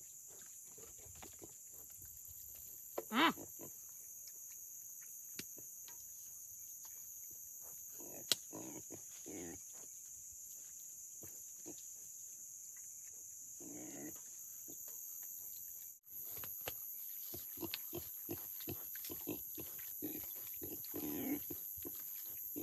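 Domestic pig giving a short pitched squeal about three seconds in, with softer grunts later, over a steady high drone of night insects. Near the end come a run of clicks and knocks as the pig mash is worked with a wooden stick in a metal basin.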